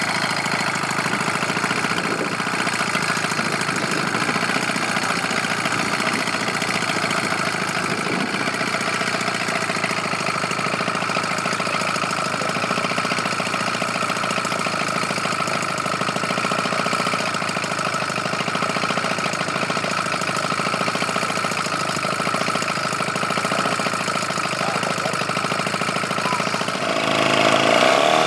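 DLE two-stroke gasoline engine of a 47% Pilot-RC Decathlon model airplane idling steadily with the propeller turning. Near the end it is throttled up and its pitch rises.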